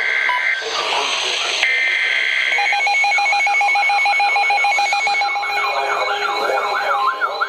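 NOAA Weather Radio Emergency Alert System tones: two SAME header data bursts of about a second each, the first already under way, with a synthesized voice between them, then a mix of pulsing and warbling alert tones. A steady weather-radio warning alarm tone comes in near the end.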